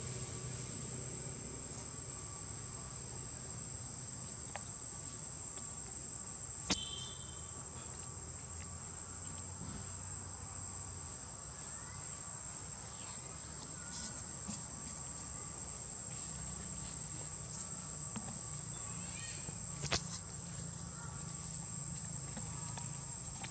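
Steady, high-pitched buzz of forest insects, unbroken throughout. Two sharp clicks stand out, about seven seconds in and again near twenty seconds.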